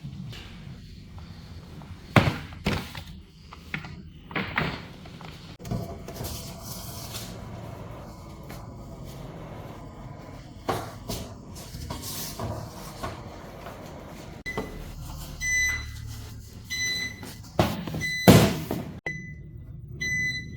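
Hard clunks and knocks of a cabinet-style door and metal parts being handled, the loudest a heavy clunk near the end. From about three-quarters of the way in, a series of short, high electronic beeps from a control panel.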